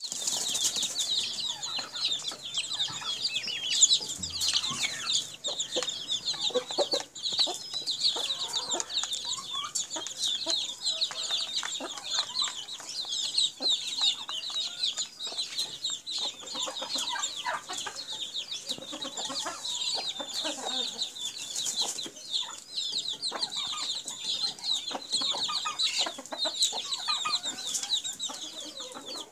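Chicks peeping nonstop in rapid high chirps, with hens clucking in lower, scattered calls underneath.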